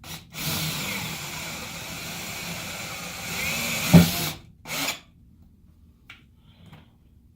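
Power drill driving a self-drilling Teks screw through the plywood subfloor into the bus's steel frame, running steadily for about four seconds with a thump just before it stops, then a brief second squeeze of the trigger.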